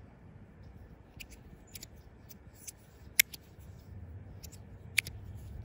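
Lowrey magnetic fidget slider being worked back and forth by hand, its metal plates giving a series of sharp, irregular clicks, with two louder clicks about three and five seconds in.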